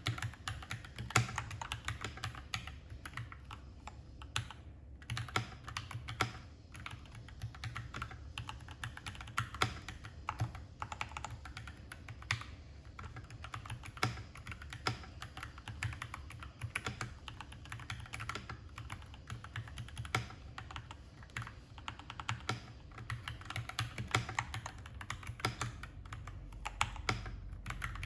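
Typing on a Keychron K4 V2 aluminium-case mechanical keyboard with stock Gateron Red linear switches and ABS doubleshot keycaps: a steady, irregular stream of keystroke clacks with a couple of brief pauses.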